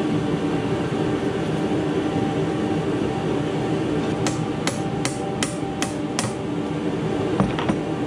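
Six quick hammer taps about half a second apart on the cast-iron headstock of a 1941 South Bend lathe being taken apart, then two lighter knocks near the end, over a steady loud rushing noise.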